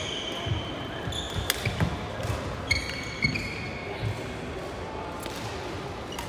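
Badminton rally: shoes squeaking in short high bursts on the wooden sports-hall floor, sharp racket hits on the shuttlecock, and the dull thuds of players' footwork.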